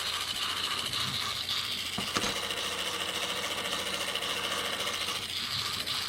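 Tomy Talk 'n' Action James battery toy train's small electric motor and gears whirring steadily, with a couple of clicks about two seconds in.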